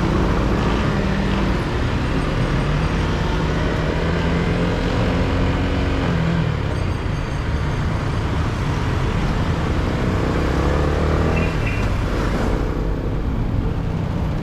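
Yamaha Sniper 155 underbone motorcycle on its stock exhaust, riding along. The single-cylinder four-stroke engine note rises and falls as it accelerates, shifts and eases off. Steady wind and road noise runs underneath.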